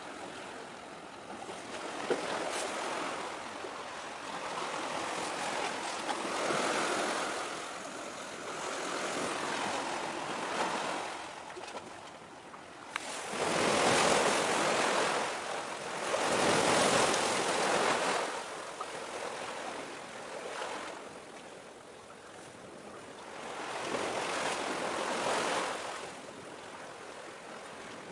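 Sea waves breaking and washing against the shore in repeated surges, each swelling and fading over a couple of seconds; the two loudest come near the middle.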